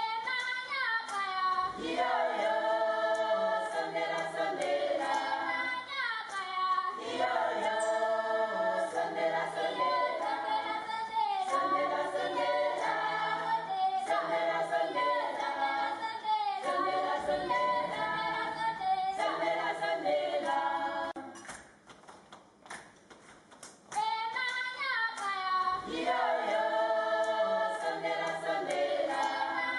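A group of voices singing a cappella in repeated phrases a few seconds long, with a short quieter lull about three quarters of the way through.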